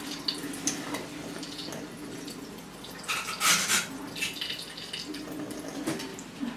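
Thin stream of water running from a kitchen tap into a stainless steel sink and spattering off a cat's head as it drinks, with a steady low hum underneath. About three seconds in there is a louder burst of splashing.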